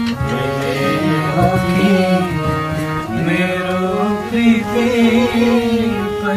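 Background music: instruments with a sung or woodwind melody line over a steady drone.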